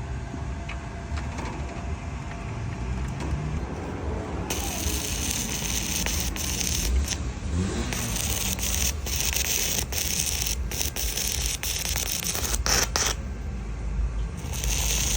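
Stick (MMA) welding arc crackling and hissing. It starts about four and a half seconds in and runs on with several brief breaks.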